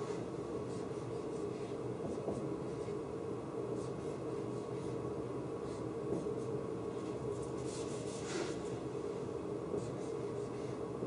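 Dry-erase marker writing on a whiteboard: short scratchy strokes, with a longer one about eight seconds in, over a steady low hum.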